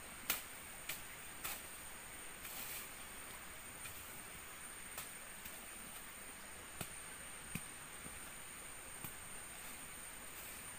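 Faint, irregular snaps and rustles of grass and weed stems being pulled and broken by hand, a second or more apart, the sharpest just at the start. Behind them is a steady high hiss.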